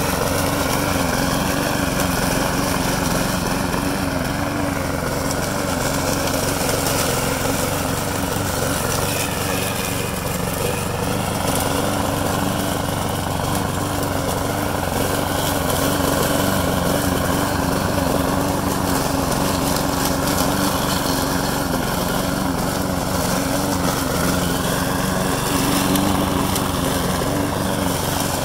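PLOW GC410 petrol push lawn mower's small engine running steadily while mowing grass and weeds, its pitch sagging slightly a couple of times.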